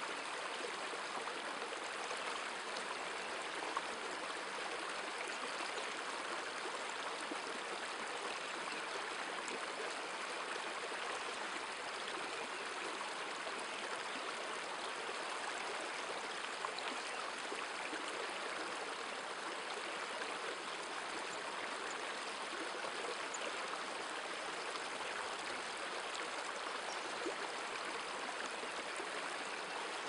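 A river flowing over stones, a steady, even rush of water.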